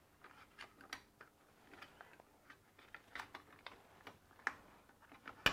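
Scattered light clicks and taps as cables are worked through a monitor arm's cable channel and side latches by hand, with one sharper click near the end.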